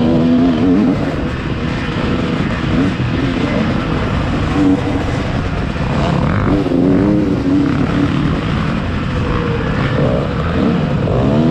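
Dirt bike engine revving up and down as the rider works the throttle along a tight trail, over a steady low rumble; the revs climb sharply near the end.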